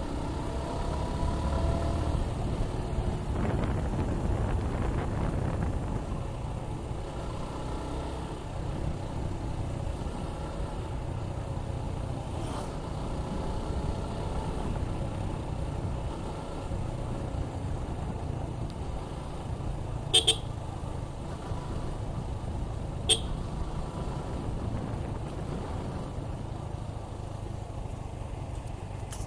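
Suzuki Gixxer 155's single-cylinder engine running under way, its pitch rising and falling with the throttle, over a steady rumble of wind and road noise. Two brief sharp sounds come about 20 and 23 seconds in.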